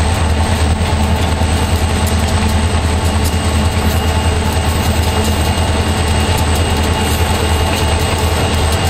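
EMD SD40-2 diesel locomotive running steadily under power at cruising speed, heard from a vehicle pacing alongside. A steady low drone with no breaks.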